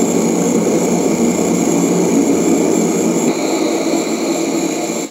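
Hot-water pressure washer's pressure relief valve venting the overheated coil: a loud, steady rushing hiss of escaping steam and hot water with whistling tones over it. A higher whistle joins about three seconds in, and the sound cuts off abruptly at the end.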